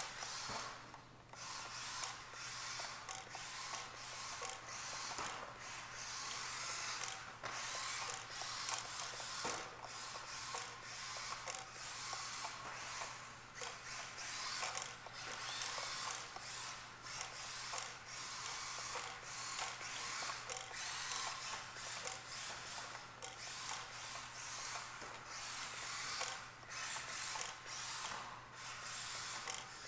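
Kyosho Mini-Z MA-020 all-wheel-drive RC car running laps: the high whir of its small electric motor and drivetrain gears, with its plastic drift tires scrubbing on the track mat. The sound rises and falls with the throttle, easing off for short moments through the corners.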